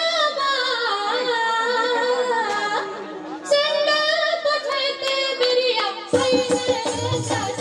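A Maithili Jat-Jatin folk song sung in a high voice over a held tone. About six seconds in, the band comes in with drums.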